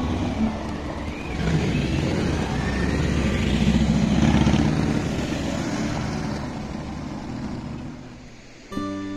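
A car passing over cobblestones, then a cruiser motorcycle's engine going by close, loudest about four seconds in and fading away. Acoustic guitar music comes in near the end.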